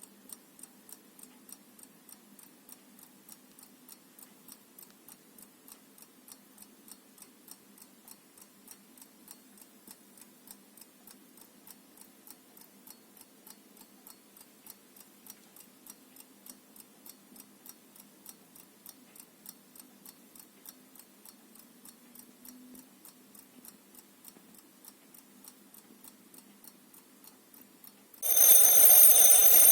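Vintage Mauthe mechanical alarm clock ticking quietly and evenly, a few ticks a second. Near the end its alarm goes off: the bell starts ringing suddenly and loudly and keeps ringing.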